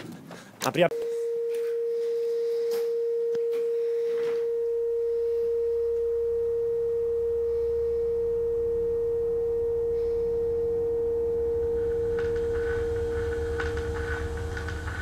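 Film sound design: a sudden loud hit about a second in, then a steady pure electronic tone held unchanged for some fourteen seconds. A low rumble builds under it from about four seconds in, and a fainter higher tone joins near the end.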